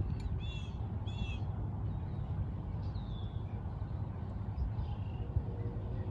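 A bird giving two short, harsh calls about half a second apart, then fainter calls a couple of times later, over a steady low rumble.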